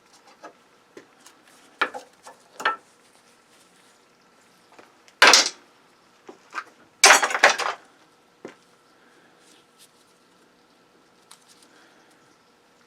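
Small metal parts of a circuit breaker clicking and clinking as it is worked apart by hand, with two louder scrapes about five and seven seconds in.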